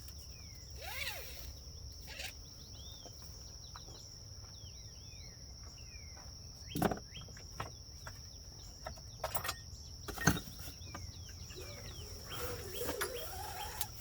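Outdoor ambience of a steady high insect drone, crickets, with birds chirping. A few sharp knocks cut through, the loudest about seven and ten seconds in.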